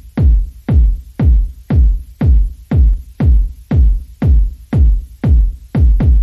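Electronic background music built on a deep kick drum, about two beats a second, each thump dropping in pitch.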